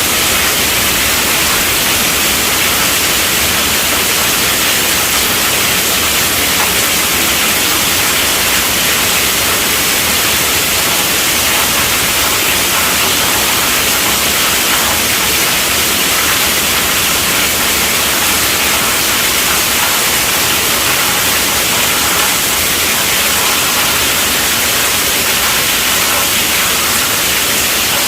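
Heavy rain falling on a tent roof: a steady, dense hiss of drops with no thunder.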